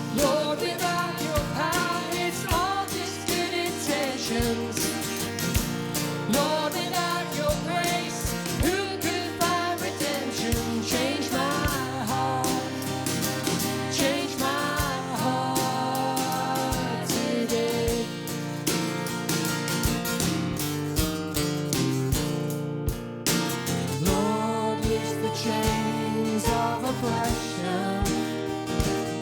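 Instrumental break in a worship song: acoustic guitar strumming chords, with a gliding melody line carried over them.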